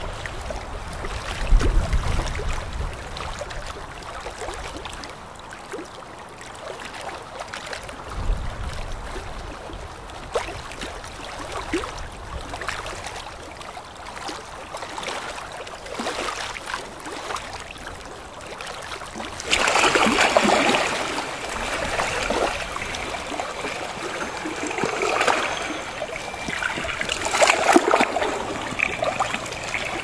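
Gentle small waves of shallow sea water lapping and splashing, getting louder and busier about twenty seconds in. Two low rumbles come in the first ten seconds.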